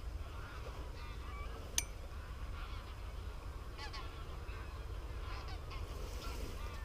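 A flock of wild geese flying over, honking: many short, overlapping calls that keep on throughout, over a steady low rumble. A single sharp click comes about two seconds in.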